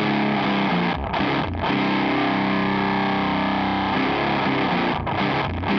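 Electric guitar through a Catalinbread Carbide distortion pedal, giving a heavy HM2-style "chainsaw" distortion. It plays sustained low chords with short choked stops about a second in and again near the end.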